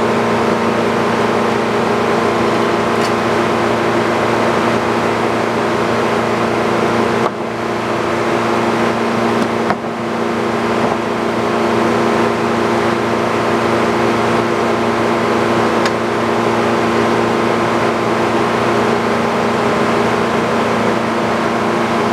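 Sawmill engine running steadily under load, with two brief dips in level about seven and ten seconds in.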